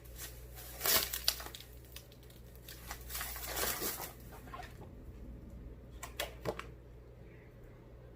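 Packaging wrap crinkling and tearing in irregular bursts as a well-wrapped item is pulled out of its box, with a few sharp clicks about six seconds in.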